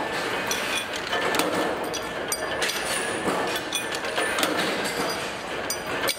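Steady clatter of running workshop machinery, with frequent sharp metallic clinks from steel sprocket blanks being handled and stacked at a press.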